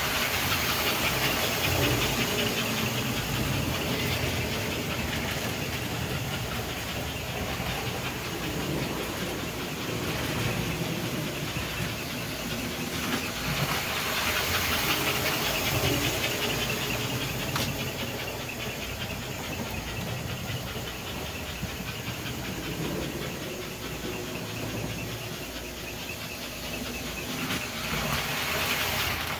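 American Flyer S-gauge toy trains running on tinplate track: a steady hiss with a fine, rapid pulse, over the rumble of the motors and wheels. The sound holds steady throughout and cuts off abruptly at the end.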